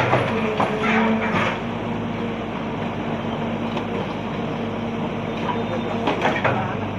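Excavator's diesel engine running steadily at an even pitch, with a few brief sharper sounds in the first second and again near the end.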